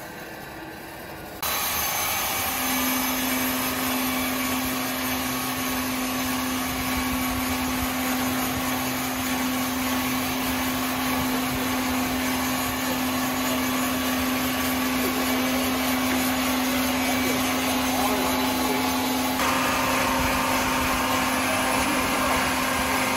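Sawmill machinery running: a loud, steady machine noise with an even hum, starting suddenly about a second and a half in and changing character near the end.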